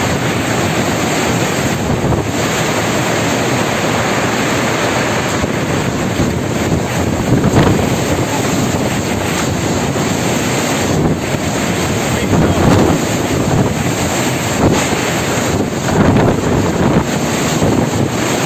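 Tornado winds rushing loudly and steadily past a phone's microphone, with heavier gusts surging now and then.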